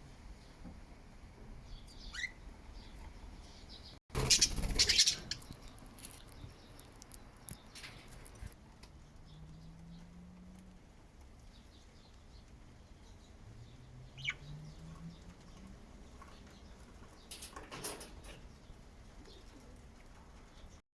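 Pet budgies chirping now and then, with a loud flurry of wing flaps about four seconds in and a shorter flutter near the end. Two faint, low, rising hums come in between.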